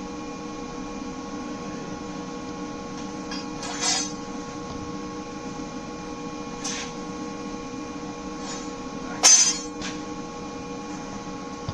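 Steady electrical hum in a workshop, with a few short metallic clinks and knocks as steel parts are handled on the baler roller; the sharpest clink comes about three-quarters of the way through.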